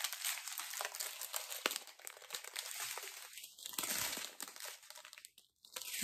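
Strips of small plastic bags of round diamond-painting drills crinkling and rustling as they are handled and laid down, with brief lulls about two seconds in and near the end.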